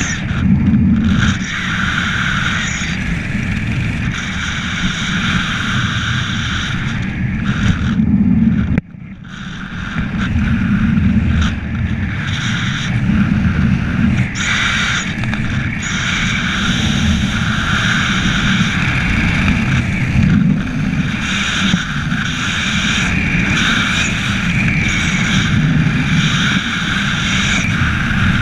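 Wind rushing over a helmet-mounted camera's microphone as a skydiver glides under an open parachute canopy, a loud, steady buffeting rumble. It drops out sharply for a moment about nine seconds in, then builds back.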